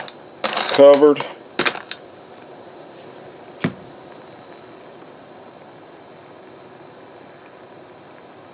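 Hot phosphate parkerizing solution fizzing steadily around bolts in a steel pot as the parts react, the Alka-Seltzer-like bubbling of the coating forming. A single sharp metal click about three and a half seconds in.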